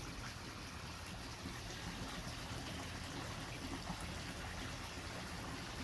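Steady, even trickle of running water.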